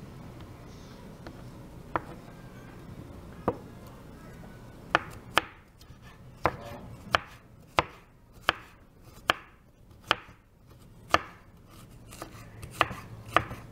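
Kitchen knife slicing ginger into thin strips on a wooden cutting board: sharp knocks of the blade against the board. Two separate cuts come early, then a steady run from about five seconds in, roughly one or two cuts a second.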